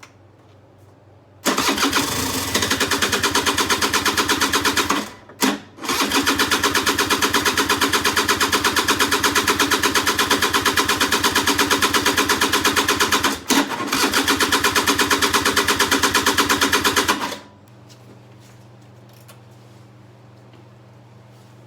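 Suzuki Address 110 two-stroke scooter engine being cranked on its starter in three long bursts, a fast even chugging that never catches and runs: the engine won't start after months unused.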